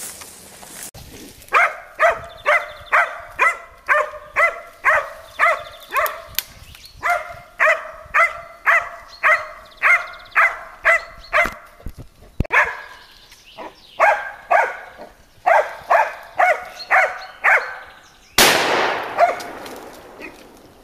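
Hunting dog barking repeatedly in steady runs of about two barks a second, with two short breaks. Near the end comes a sudden loud bang with a tail that dies away over a second or so.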